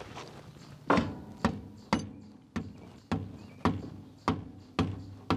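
Steady hammer taps, about nine strikes at roughly two a second, on a heavy-truck driveshaft U-joint. They are tapping the U-joint bearing cups past the little tabs and into the yoke so the clamps can pull them home.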